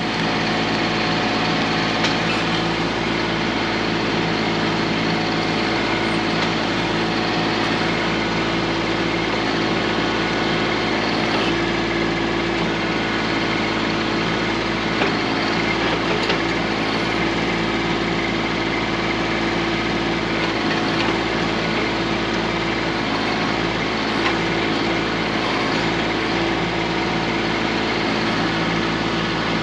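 Kubota B2650 compact tractor's three-cylinder diesel engine running steadily at an even speed as it powers the BH77 backhoe, with a few faint knocks.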